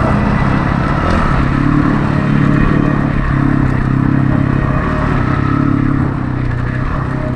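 Kawasaki dirt bike engine running at a steady, moderate speed while riding, heard on board from the rider's own bike, with only small changes in pitch.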